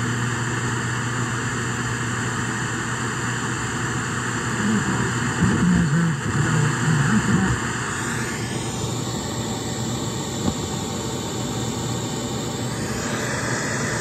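FM radio static from a Yamaha CR-640 receiver's tuner as the dial is turned between stations: a steady hiss, with faint snatches of a broadcast voice around the middle. About eight seconds in the hiss changes character with a falling whistle-like sweep as the tuner passes across a signal.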